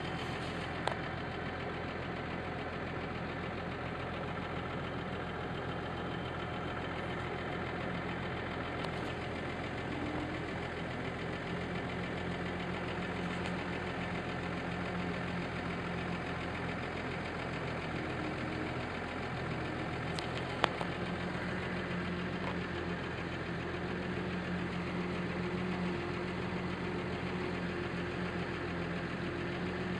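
Diesel engine of a New Holland T6050 tractor running steadily, with a steady low hum. Two sharp clicks, one about a second in and one about two-thirds of the way through.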